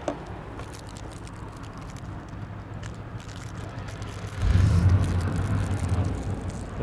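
Quiet outdoor background, then a vehicle engine running close by comes in loudly as a steady low rumble about four and a half seconds in.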